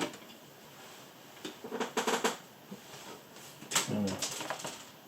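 LEGO bricks clicking and rattling as plastic pieces are handled and pressed together, in two busy spells about one and a half and four seconds in.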